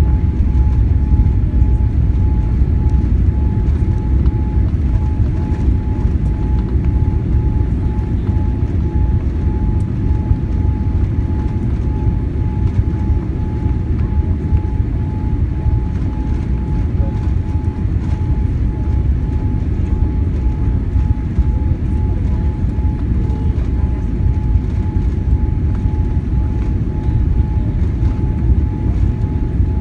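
Cabin noise inside a Boeing 787 on approach: a steady low rumble of airflow and engines, with a faint steady whine running through it.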